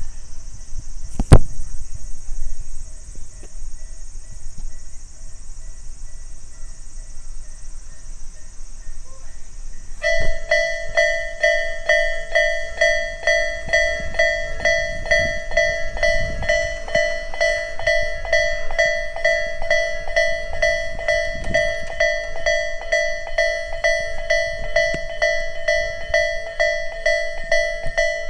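Japanese railway level-crossing warning bell, Tobu's "sound A" electronic tone from a newly replaced speaker, starting about ten seconds in and ringing in a rapid, even ding-ding. Before it there is a steady high hiss, and a sharp knock about a second in.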